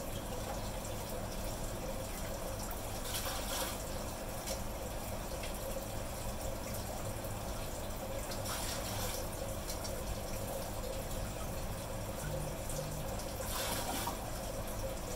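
Water splashing from a cup into a plastic bucket three times: a few seconds in, about halfway, and near the end. Underneath runs a steady trickle of aquarium water.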